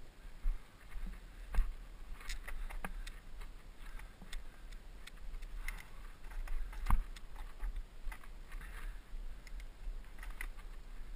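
Irregular knocks and rattles over a steady low rumble of wind on the microphone, typical of gear jolting over a rough dirt trail at speed.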